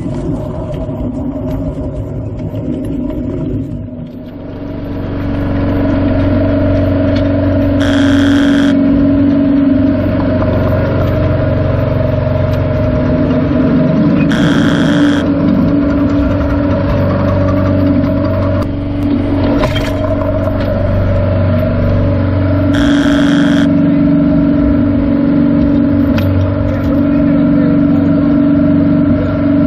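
Steel wheels of a small unpowered wooden car rolling on miniature-railway track: a steady rumble with a ringing hum that grows louder over the first few seconds as the car picks up speed, then holds. A brief sharper noise cuts in three times.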